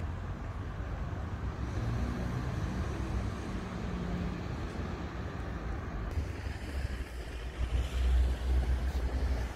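Outdoor background noise with a low, uneven rumble that grows stronger and more uneven near the end.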